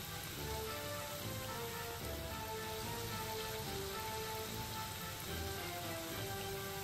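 Small banana-and-rice-flour fritters deep-frying in hot oil: a steady, even sizzle, with soft background music playing over it.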